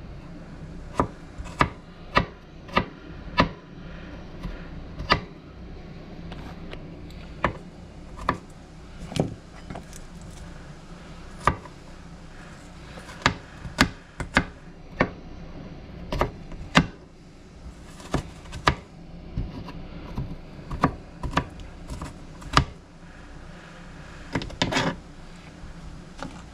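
Kitchen knife chopping garlic cloves on a plastic cutting board: irregular sharp taps of the blade striking the board, some in quick runs and some single, with short pauses between.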